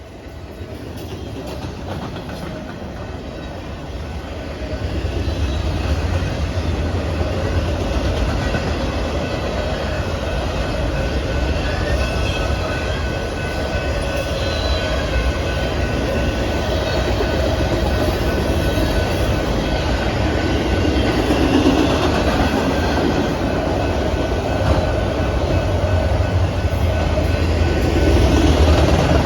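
Norfolk Southern manifest freight train rolling past: a broad rumble of wheels on rail that builds over the first few seconds and then holds steady, with thin, steady high-pitched ringing tones over it.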